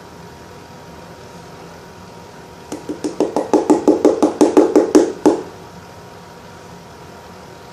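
Plastic glue bottle being squeezed to pour out the last of the glue, giving a quick run of about a dozen short pops of air over two and a half seconds.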